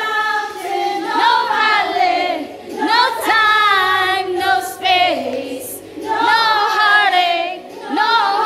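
High voices singing a song together in long held, wavering notes, phrase after phrase with short breaks of about a second.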